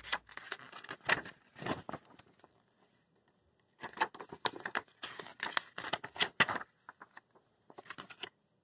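Glossy photo pages being handled and flipped close to the microphone: bursts of rustling and flapping paper, with a quiet gap of about a second and a half starting about two seconds in.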